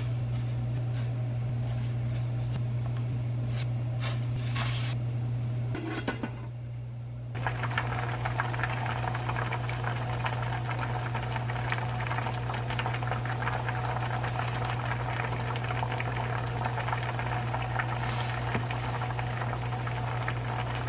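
Spicy mackerel-and-radish stew boiling hard in a stainless steel pot: a dense, crackling bubbling from about seven seconds in, over a steady low hum. Before that, a few light clicks as radish slices go into the broth.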